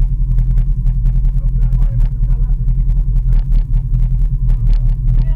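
UTV side-by-side engine idling steadily with a low drone, along with a run of quick rattling clicks.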